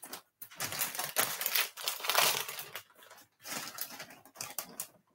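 Crinkling and rustling of a plastic packet being handled, in irregular bursts with a short pause about three seconds in.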